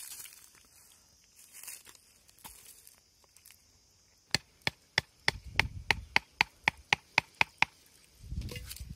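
Billhook knife blade chopping at a thin wooden stick: a quick run of about fifteen sharp strikes, roughly four to five a second, starting about four seconds in.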